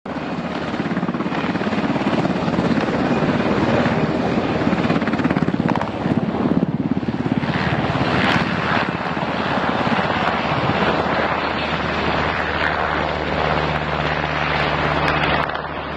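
Black Hawk-type military helicopter running close by, its rotor blades beating steadily over the engine noise.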